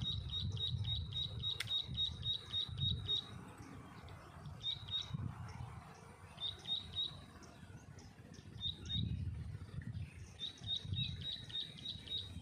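A bird calling in rapid runs of short, high chirps, about five a second, in several bursts with gaps between, over a low rumble.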